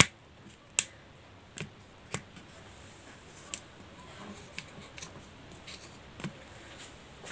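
Scattered light clicks and taps, about eight of them spread over several seconds, from the recording phone being handled and repositioned over the sewing table.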